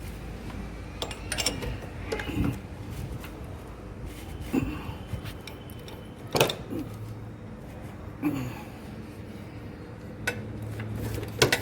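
Separate metallic clinks and knocks, roughly every two seconds, from work on a motorcycle engine with its timing gears exposed. A faint steady hum runs underneath.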